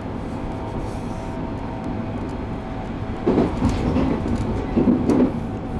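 JR East 701-series electric train running between stations, heard from inside the car: a steady rumble of wheels on rail, with louder surges about three and a half and five seconds in.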